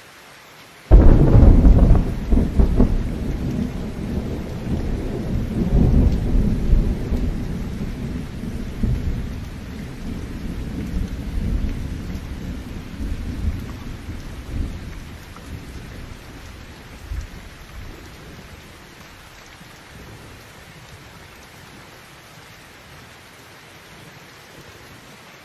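Heavy rain falling steadily, with a sudden loud thunderclap about a second in that rolls on as rumbling and fades away over the next fifteen seconds or so.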